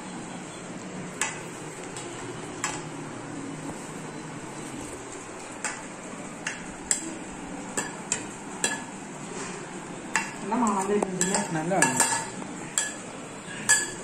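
Serving spoon and plates clinking and scraping as rice is pushed off one plate onto others, in scattered sharp clicks that come thicker near the end. Between them, about ten seconds in, there is a brief warbling voice-like sound.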